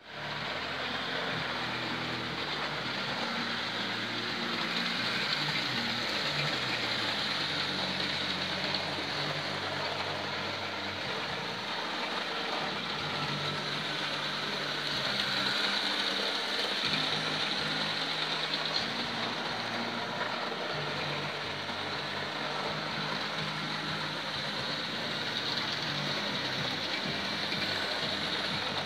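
Model railway train running around the track: the steady whirr of a small electric locomotive motor with the hiss of wheels on the rails, the low hum shifting in pitch now and then.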